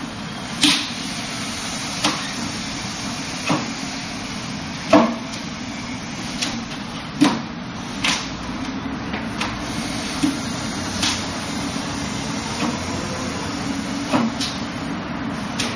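Arms and hands striking the arms and trunk of a wooden Wing Chun dummy: about a dozen sharp wooden knocks at irregular intervals, roughly a second apart, over a steady hiss.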